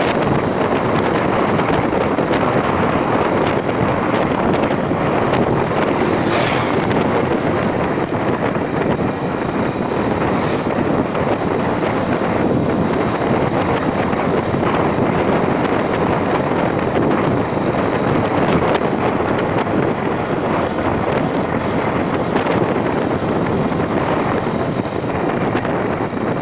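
Loud, steady wind buffeting the microphone on a moving vehicle during an uphill ride, with brief sharper hisses about six and ten seconds in.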